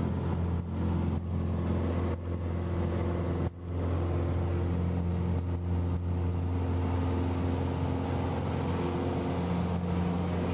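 Piper Archer II's four-cylinder Lycoming engine and propeller running steadily at high power, heard inside the cabin during the takeoff roll. The sound dips briefly about three and a half seconds in.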